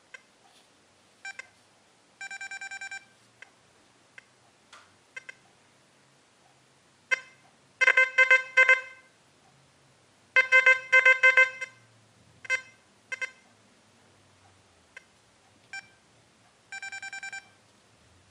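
XP Deus metal detector sounding its target tones as an object is swept over the coil: short beeps and warbling, buzzy tones at a few different pitches, loudest in two clusters around eight and eleven seconds in. The discrimination is set to negative values, around -2 to -3.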